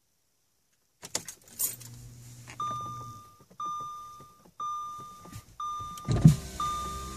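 Ignition key clicking in and turning on an Audi Q7, then the car's warning chime sounding a single steady tone about once a second as the electrics power up. There is a thump about six seconds in.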